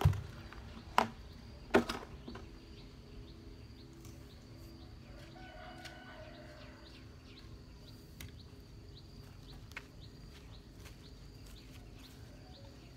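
Three sharp knocks in the first two seconds, from garden work with a plastic bucket and hoe, then faint bird chirps repeating over a steady low hum.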